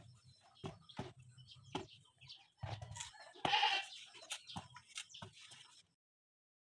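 Ripe bananas being set down into a metal cooking pot, each one knocking against the pot and the other bananas, about once a second. A short animal call sounds about three and a half seconds in and is the loudest thing. Everything cuts off suddenly near the end.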